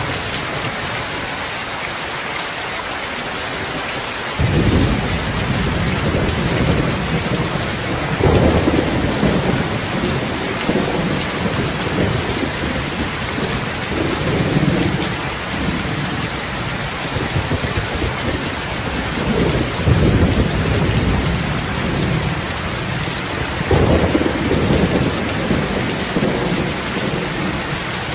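Heavy rain falling steadily, with thunder rumbling low in long swelling waves from about four seconds in.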